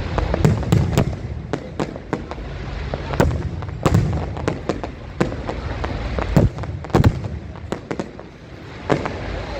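Aerial firework shells bursting overhead: a dense, irregular run of bangs and crackling pops over a constant low rumble, with the sharpest bangs a little past the middle.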